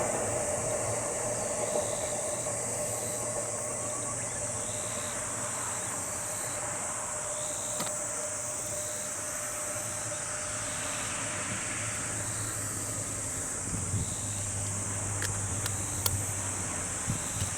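Ohmi Railway 300 series electric train running on into the distance, its rumble and hum dying away slowly. A steady high-pitched insect drone sounds throughout.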